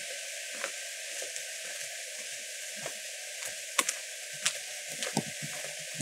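Steady hiss of light rain falling, with a few sharp ticks of drops striking nearby.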